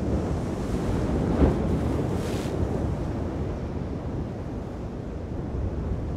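Rough surf and wind buffeting the microphone: a steady rushing of breaking waves, with a louder, hissier rush about a second and a half in.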